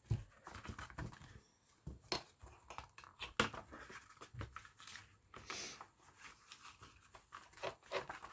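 Small jewelry pliers clicking and scraping on the wire staples of a thin children's book as the prongs are straightened, with paper pages rustling and crinkling in between. The clicks come irregularly, a few each second.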